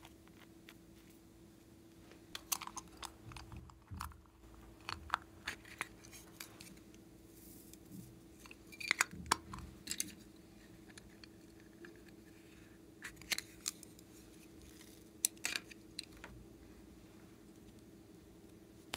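Small plastic bottles and containers being handled and opened by hand: scattered sharp clicks and taps of plastic caps and lids, in short clusters, over a faint steady hum.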